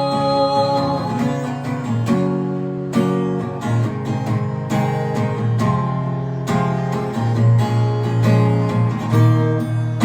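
Instrumental music break in a gospel song: acoustic guitar strummed in a steady rhythm, with no singing.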